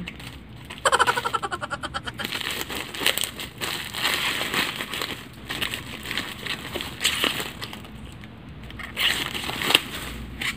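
Plastic wrapping crinkling and rustling as a plastic-wrapped parcel item is handled and turned over, louder near the end. A short hummed voice sound comes about a second in.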